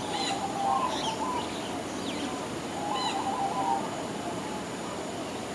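Small birds calling: several short, high chirps, and twice a low whistled phrase of a few stepped notes, over steady outdoor background noise.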